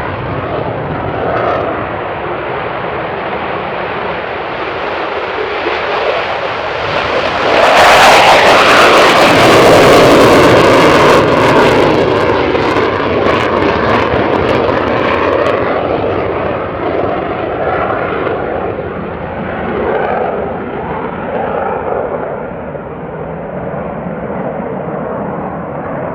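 F-15E Strike Eagle's twin jet engines at take-off power. The noise builds to a loud peak with crackling about eight seconds in, then fades and dulls as the jet moves away.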